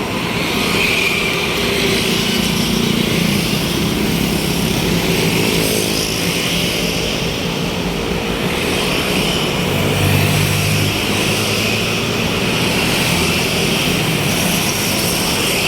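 Tour bus engine running close by, a steady loud drone whose pitch drifts a little, with a hiss above it.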